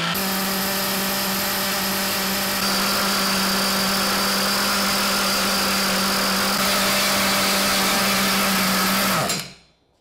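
A 3.5 cc two-stroke nitro glow engine running flat out with a steady, high-pitched note while it drives a belt and worm-gear reduction to lift a 2.5 kg weight. It stops shortly before the end.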